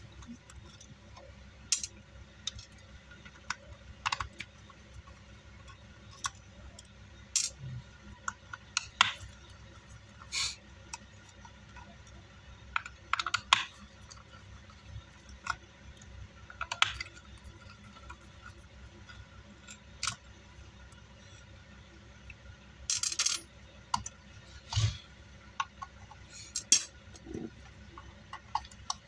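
Irregular small metallic clicks, taps and rattles of hand tools and screws as a car amplifier's metal chassis is taken apart, with a quick cluster of clicks near the end.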